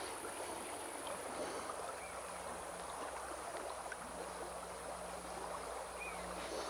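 Shallow river running steadily over stones, a constant rush of water. Two faint short chirps sound over it, a couple of seconds in and near the end.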